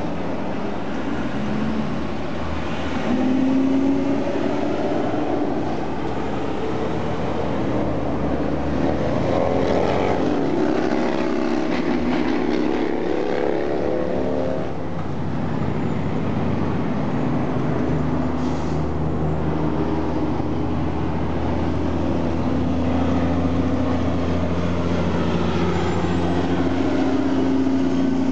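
Heavy diesel trucks hauling oversize loads running slowly past in convoy, their low engine note shifting in pitch through the first half and holding steadier later, over constant road noise.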